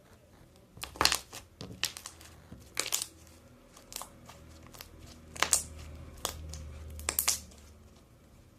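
Slime being pressed and stretched by hand, giving a series of sharp crackling pops about once a second.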